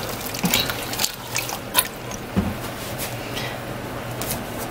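Spoon stirring beans in water in a stainless steel Instant Pot inner pot: liquid sloshing, with a few short knocks of the spoon against the pot.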